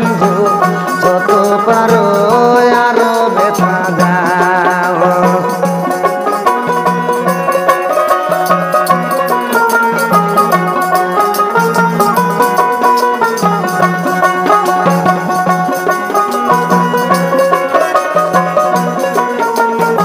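Instrumental passage of Bengali folk music: a plucked dotara carrying the melody over harmonium, with a hand drum and small hand percussion keeping a steady beat.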